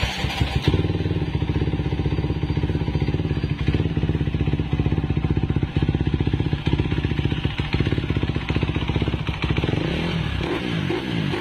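Honda CB motorcycle with a racing-tuned engine running loudly at a steady speed, its exhaust beating in fast, even pulses. Near the end the pitch swings up and down as the throttle is blipped.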